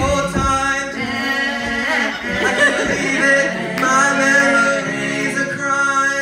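Three male voices singing a cappella in close harmony into handheld microphones, with held chords; the singing stops sharply near the end.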